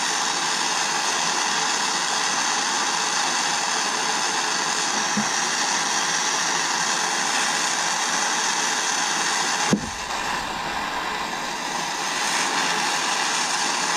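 Gas soldering torch burning with a steady hiss, heating a buckle to flow 56% silver hard solder under a silver overlay. About ten seconds in there is a brief click and the hiss dips slightly for a moment.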